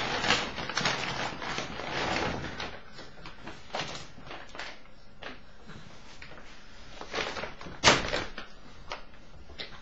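Plastic ball-pit balls tumbling out of a fabric bag as it is lifted away, with rustling at first, then scattered knocks and clatters of balls on a carpeted floor. The sharpest knock comes near the end.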